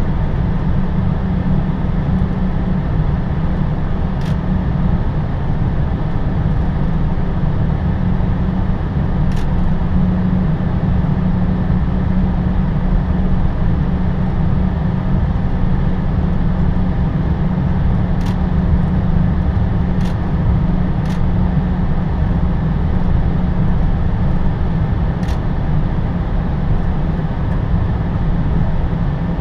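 Steady loud rumble and rush inside an Airbus A320's cockpit as the airliner rolls along the runway on its landing rollout, heaviest in the low end. A few faint sharp clicks sound here and there.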